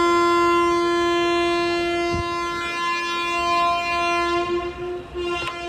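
Train horn sounding one long, steady note as the departure signal before the train pulls out; near the end it breaks up and fades.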